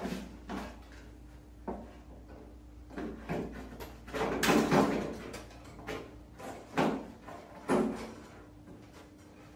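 Short, scattered rubbing, scraping and knocking from hands working a wire through a steel car fender and handling the sheet metal. The loudest is a longer scrape and rattle about halfway through. A low steady hum runs underneath.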